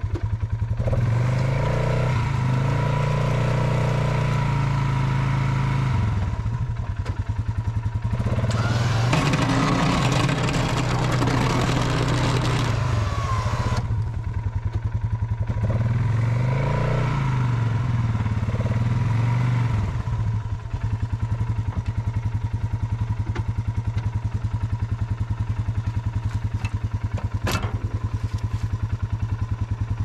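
Polaris Sportsman ATV engine running while it plows snow. It revs up and eases off twice, with a few seconds of louder rushing noise in the middle, then settles to a steady idle; there is a single sharp click near the end.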